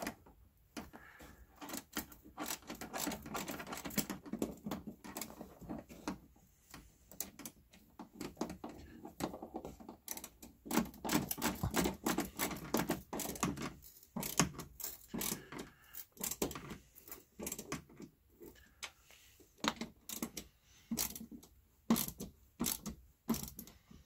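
Irregular metallic clicking, knocking and rattling of hands working an oven door hinge and its parts, with denser bursts of rattling a few seconds in and again around the middle.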